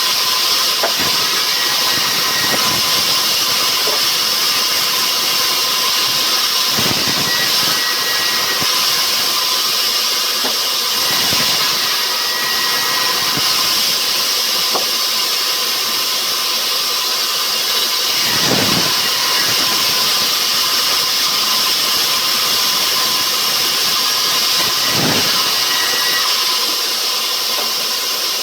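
Rubberwood sawmill machinery running steadily under power, a loud constant hiss and whine from the saw, with three dull thumps spread through it.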